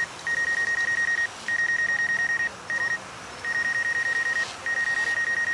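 Drone remote controller's warning alarm: a high electronic beep that pulses rapidly, sounding in runs of about a second with short breaks between them.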